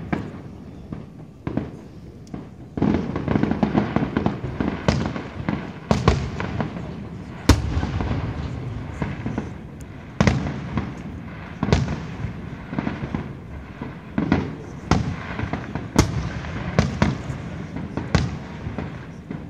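Fireworks display: aerial shells bursting in sharp bangs every one to three seconds, with stretches of rapid crackling between them.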